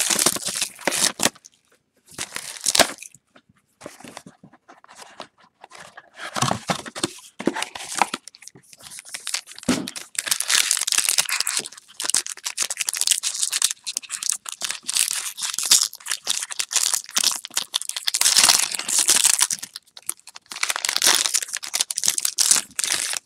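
Plastic and foil wrapping of a trading card box and pack being crinkled and torn open by hand: short rustling bursts at first, then a long stretch of steady crinkling and tearing from about ten seconds in.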